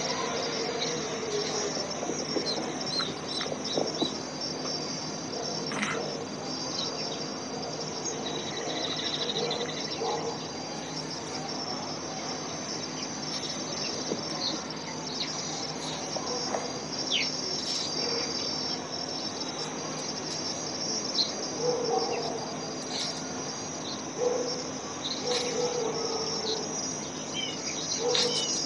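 Steady, high-pitched insect chorus like crickets trilling, with a few short bird chirps near the end.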